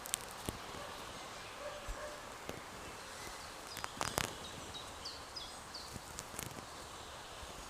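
Forest ambience: a steady soft hiss with scattered sharp clicks and crackles. A short run of about four high bird chirps comes about five seconds in.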